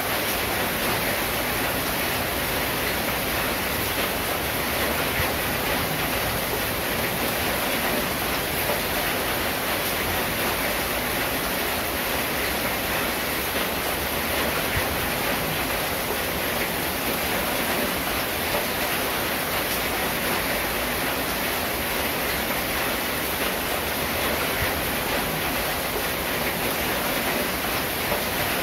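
Steady rain falling on a corrugated zinc roof, an even, unbroken hiss of drops.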